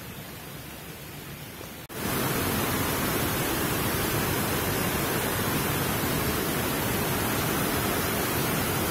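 Steady rushing hiss with no distinct events. It drops out for an instant about two seconds in, then comes back much louder and holds level.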